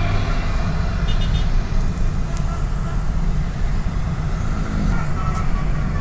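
Bus engine and road noise: a steady low rumble while driving along the road, with a brief run of short high beeps about a second in.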